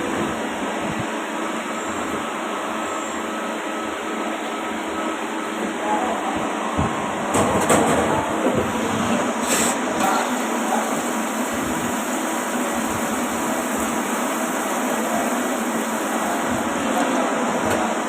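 CNC turning lathe running through a machining job: a steady mechanical noise with a few faint steady tones, broken by a few sharp clicks about eight to ten seconds in.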